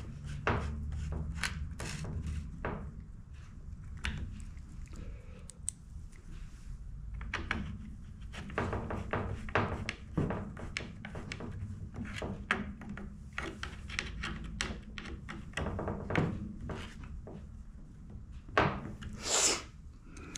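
Clicks, taps and light knocks of a T-handle wrench turning screws in a Husqvarna 455 Rancher chainsaw's plastic housing as parts are handled on a metal workbench, with a louder scrape near the end, over a low steady hum.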